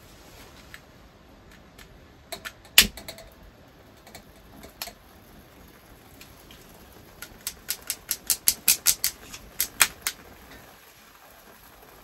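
Long-nosed lighter clicking while lighting solid fuel in a small folding pocket stove. A few sharp clicks come about two to three seconds in, then a quick run of about a dozen clicks from about seven to ten seconds in.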